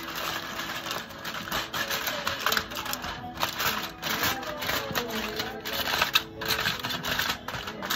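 Aluminium foil crinkling and crackling in irregular bursts as it is pressed and crimped by hand over a glass baking dish.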